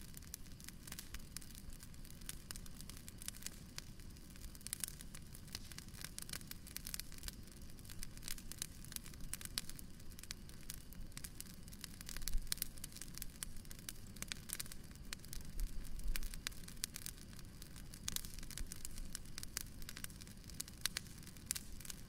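Bonfire crackling: a dense run of small sharp pops and snaps over a low steady rumble, with a couple of louder swells midway.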